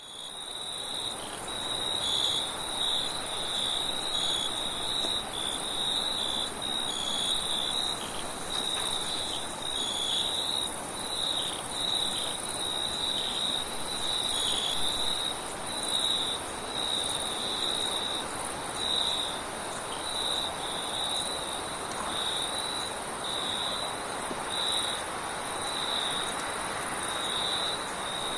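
Crickets chirping at night: short chirps repeating about once a second, over a continuous high insect trill and a steady hiss of wind. The sound fades in at the start.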